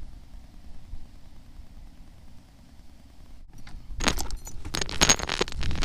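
A low steady rumble, then from about four seconds in a quick clatter of jingling keys and close handling clicks and rattles as the rider returns to the motorcycle.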